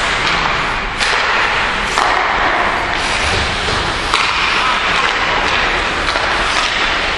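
Ice hockey rink noise during play: a steady rushing din with sharp knocks of sticks, puck and boards about a second in, at two seconds, and again just past four seconds.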